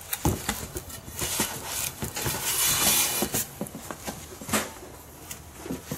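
Handling noise from a spoked bicycle wheel with a hub motor being turned over and laid flat on a cardboard box: scattered knocks and clicks, with a rustling scrape about two to three seconds in.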